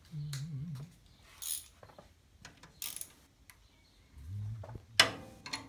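Metal clinks, rattles and scrapes of hand tools and loose parts being handled during engine disassembly, with one sharp loud click near the end. A low murmur comes and goes at the start and near the end.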